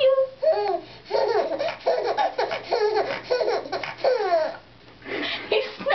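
Baby laughing hard while being tickled: a quick run of short laughs, many falling in pitch, breaking off about four and a half seconds in, with a brief last laugh near the end.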